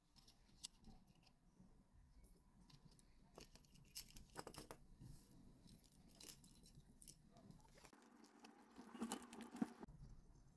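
Plastic pens and a small pencil-lead case being picked up and set down on a cloth-covered table: faint clicks and light rattling, with a cluster of sharper clicks about four seconds in and a louder rustling clatter near the end.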